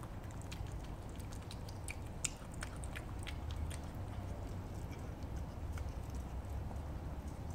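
Stray cats eating wet canned cat food: short, wet, clicky chewing and lapping sounds, most frequent in the first half, over a steady low background rumble.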